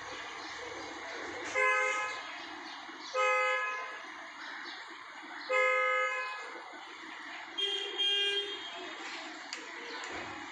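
Vehicle horns honking about five times, short steady toots a second or two apart, the last two at a different pitch, over a steady background hum.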